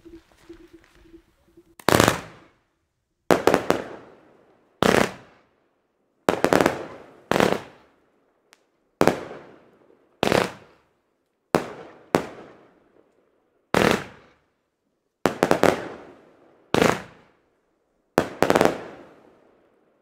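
Diamond 'Break Even' 36-shot, 25 mm firework battery firing: a loud, sharp bang about every second and a half, each trailing off briefly, starting about two seconds in.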